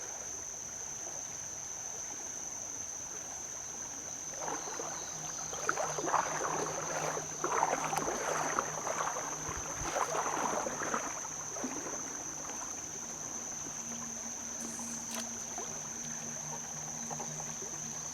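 Water sloshing and splashing for several seconds in the middle, as legs wade through a shallow creek, over a steady high insect drone.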